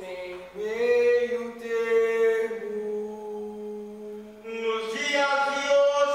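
Chanted vocal singing in long held notes that barely move in pitch. A new, higher phrase comes in about four and a half seconds in.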